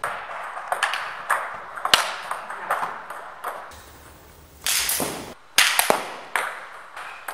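Table tennis balls clicking off paddles, the table and other hard surfaces in a series of sharp, irregular taps. A short burst of noise comes about five seconds in, followed by a few louder clicks.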